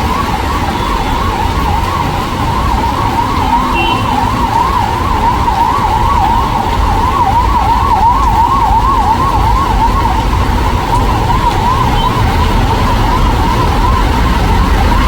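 Emergency vehicle siren wailing in a fast, even up-and-down sweep, over a steady low background rumble.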